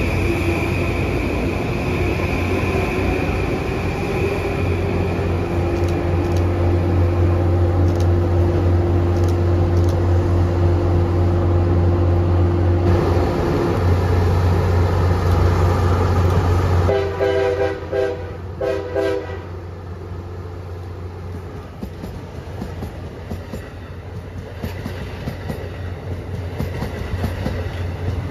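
Passing trains: the steady rumble and whine of a Metro-North electric train pulling out, then a train horn sounding about three quick short blasts about 17 seconds in, then the quieter steady rumble of a passing train on the rails.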